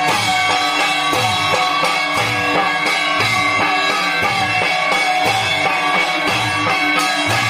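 Live Santali Dasai dance music: large brass hand cymbals ringing and clashing over a steady drum beat, with the twang of bhuang gourd-resonated musical bows.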